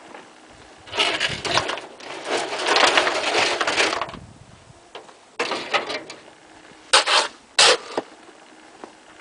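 Wet concrete mix of gravel, sand and cement churning and rattling in a hand-turned concrete mixer, coming in uneven noisy bursts, with two short, sharp bursts about seven seconds in.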